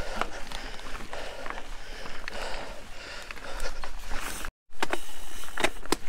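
Ibis Ripmo full-suspension mountain bike rolling over a rocky trail: tyres crunching on loose rock with frequent sharp clicks and knocks from the bike. The sound cuts out briefly about two-thirds of the way through.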